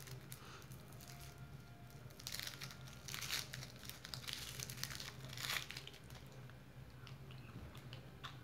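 Lollipop wrapper crinkling as it is pulled off by hand, in several short bursts.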